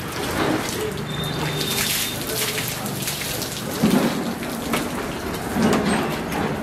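Water running and splashing onto a wet concrete floor in a steady patter as a skinned sheep carcass is washed, with a couple of dull thumps about four and six seconds in.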